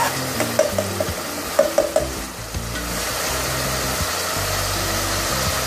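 Chopped onion sizzling as it fries in oil in a steel pot, being browned. A metal spoon scrapes and clinks against the pot in quick strokes during the first two seconds, then the steady sizzle carries on alone.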